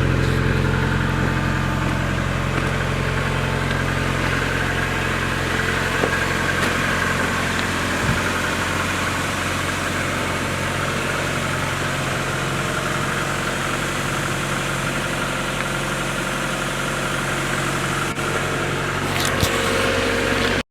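Car engine idling steadily at an even speed, with a few light clicks.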